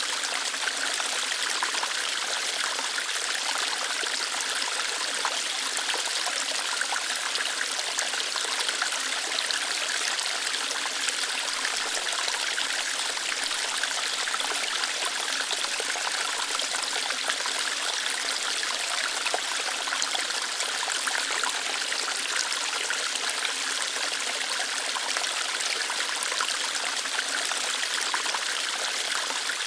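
Small waterfall flowing lightly over rocks: a steady, even rush and splash of water with no change in it.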